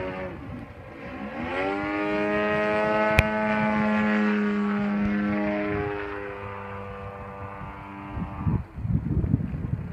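Giant-scale RC Edge aerobatic plane's GP 123 gas engine, with rear-exit canister mufflers and a 27x11 carbon-fibre prop, running in flight overhead. Its note drops just after the start, climbs back to a steady high pitch, and falls to a lower steady note about six seconds in. A sharp click comes about three seconds in, and low rumbling bursts come near the end.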